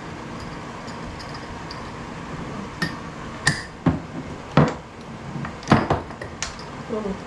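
A handful of sharp knocks and clinks from kitchen work: glass spice jars and their lids handled and set down on the worktop, and a knife on a wooden chopping board. About six of them come between about three seconds in and near the end, after a quiet start.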